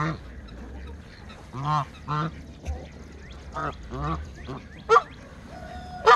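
Goose honking: a series of short, separate honks, several of them in quick pairs.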